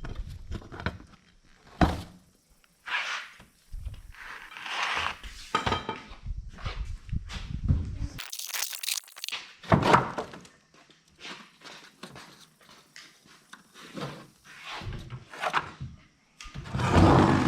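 Irregular knocks, thuds and clattering from working a large cut-out hole free by hand, with a short hissing scrape about eight seconds in and a loud thump near the end.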